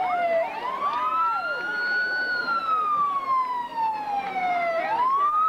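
Fire engine siren wailing, rising over about two seconds and falling slowly for about two and a half, then starting to rise again near the end. A second, fainter siren tone sweeps up and down alongside it.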